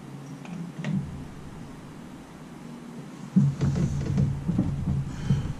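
Hands working blind in a Jeep's engine bay, rustling and knocking against wiring and a plastic locking electrical connector on the ignition coil pack while trying to release it. There are a few light clicks at first, then it gets louder and busier from about three and a half seconds in.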